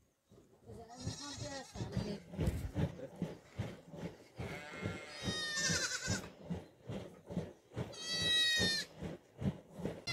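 Goats bleating: three high, wavering calls, about a second in, near the middle and near the end, over scattered short low knocks.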